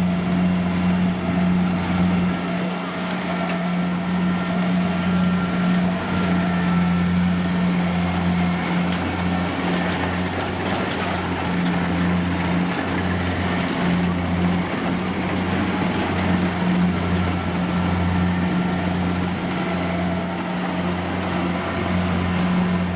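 Kubota DC70 rice combine harvester running steadily under load, its diesel engine holding a constant low hum.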